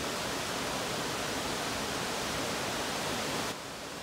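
Steady rushing of a mountain stream cascading over rock ledges, dropping a little in level about three and a half seconds in.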